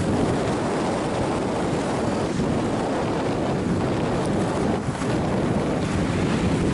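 Wind rushing over the microphone of a camera carried by a skier going downhill at about 52 km/h: a steady, loud, low rumbling noise.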